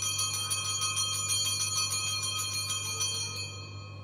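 Altar bells shaken in a rapid ringing peal, marking the elevation of the consecrated host at Mass; the ringing dies away about three and a half seconds in.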